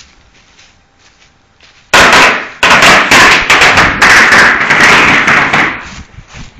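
A string of firecrackers going off about two seconds in: a dense, rapid run of loud cracks for about four seconds, near the limit of the recording, then dying away.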